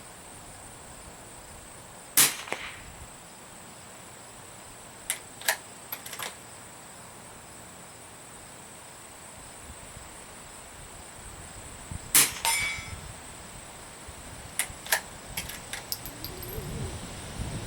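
Remington 513T .22 LR bolt-action target rifle fired twice, about ten seconds apart, each shot sharp with a short ring after it. Between and after the shots come short clusters of metallic clicks as the bolt is worked to chamber the next round.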